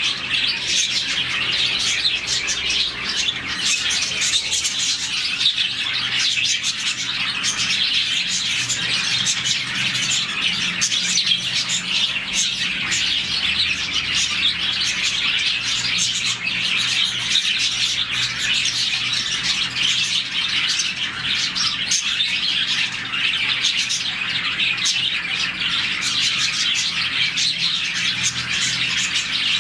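A colony of about forty budgerigars chirping all at once, many short overlapping chirps and warbles forming a continuous chatter with no pauses.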